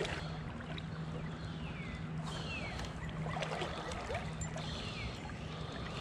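Shallow, clear creek running over a stony bed: a steady wash of flowing water, with a low steady hum under it and a few short high whistles that fall in pitch.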